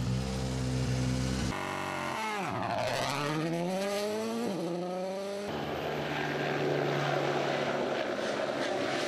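Background music briefly, then a Toyota GR Yaris Rally1 Hybrid rally car's 1.6-litre turbocharged three-cylinder engine at full stage speed, revving hard with its pitch falling and climbing through quick gear changes. From about halfway in, a steadier drone takes over as the car runs farther off, with a helicopter in the air.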